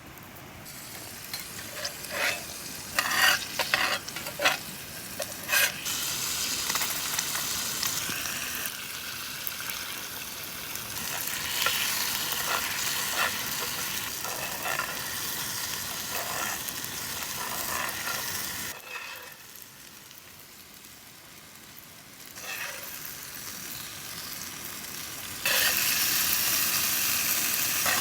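Hamburger steak sizzling on a hot round iron griddle over a campfire: a steady frying hiss, with several sharp clicks in the first few seconds. The sizzle drops away for a few seconds late on, then comes back louder near the end.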